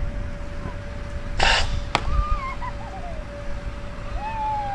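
Wind rumbling on the microphone, with a steady faint hum, a short hiss about one and a half seconds in, and distant voices calling out in drawn-out rising and falling cries near the end.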